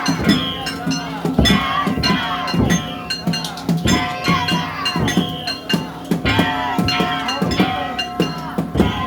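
Daijayama festival percussion playing: drums beaten in a driving rhythm with clanging, ringing metal gongs.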